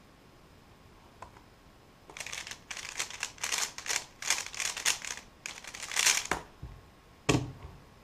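A 3x3 Rubik's speedcube being turned very fast, a rapid run of clicking and rattling layer turns lasting about four seconds, starting about two seconds in. A single sharp knock follows near the end.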